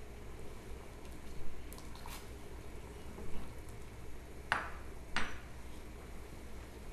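Metal spoon clinking against a small stainless-steel saucepan: two sharp clinks about four and a half and five seconds in, with a fainter tap around two seconds in.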